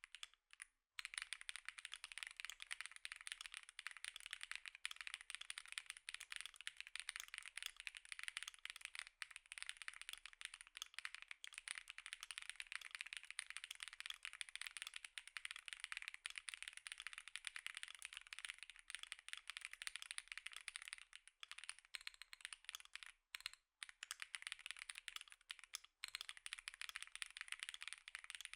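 Fast typing on an Epomaker Tide 65 aluminium gasket-mount keyboard with its stock Epomaker Lemon linear switches: a dense, continuous stream of key clacks, broken by short pauses about a second in, at about 23 seconds and near 26 seconds.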